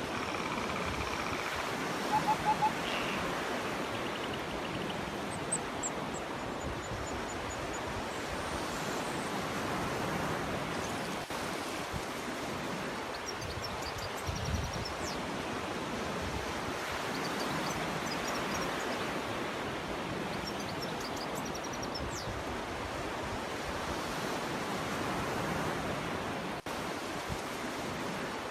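Surf washing steadily onto a beach, with short high bird chirps scattered through it and a quick run of four louder notes about two seconds in.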